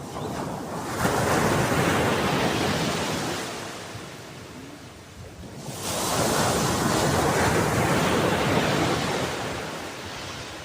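Ocean waves surging and breaking twice: each wave swells into a loud rush of surf for a few seconds and then fades away.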